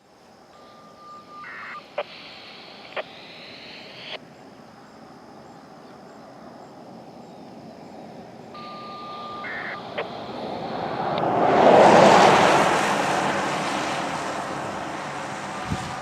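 Siren-activation tones heard over a scanner radio: two short transmissions, each opening with a tone that steps up in pitch and ending with clicks. A passing vehicle's noise swells to the loudest point about twelve seconds in and then fades.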